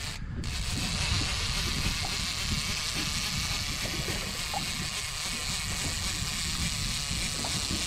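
Wind buffeting the microphone over open sea, a steady rumbling rush, with a fishing reel being wound in under it after a tope has come off the line.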